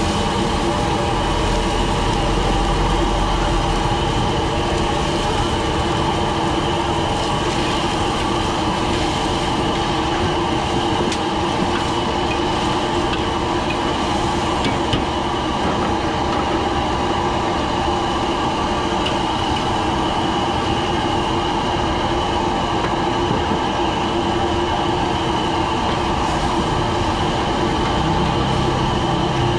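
Commercial gas wok burners running at full flame: a steady, dense rush of noise with a few held hums in it. A metal ladle taps and scrapes in the wok now and then.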